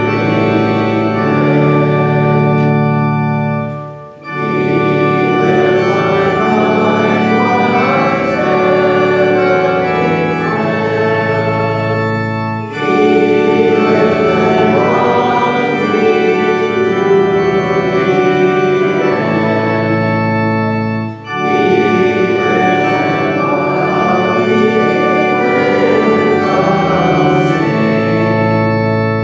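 Organ playing sustained chords in long phrases, with brief breaks between phrases about four, twelve and a half, and twenty-one seconds in.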